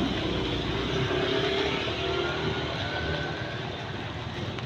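Steady motor vehicle noise: an engine running with road noise, without sudden changes.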